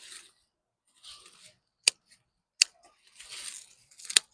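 Garden shears snipping through sweet potato vines: three sharp snips amid the rustle of foliage.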